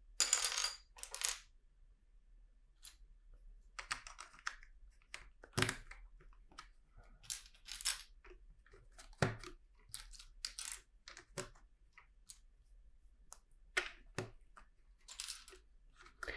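Plastic LEGO pieces being handled and fitted together: irregular small clicks and rattles, with short rustles in between.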